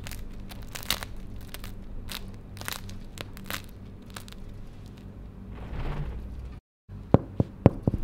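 Crust of a crusty no-knead loaf crackling and crunching under pressing fingers, a sharp crackle about every half second. Near the end, three sharp taps of fingers on the bottom of the loaf.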